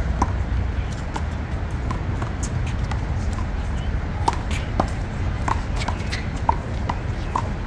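One-wall handball rally: the rubber ball smacking off the wall and the court and slapped by hands, many short sharp hits through the stretch, over a steady low background rumble.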